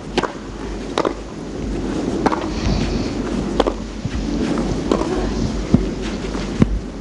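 Tennis ball struck by rackets in a rally that opens with a serve, a sharp pock about once a second, seven strikes in all, over a steady background hiss.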